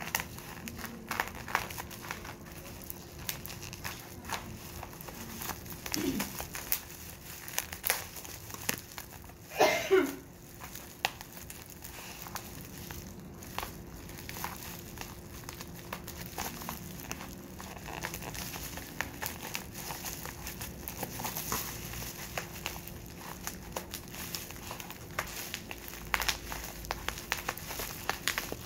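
Plastic bubble wrap crinkling and crackling as it is handled and pulled off a boxed UPS battery, with many small irregular crackles. A brief louder sound falling in pitch stands out about ten seconds in, over a steady hum.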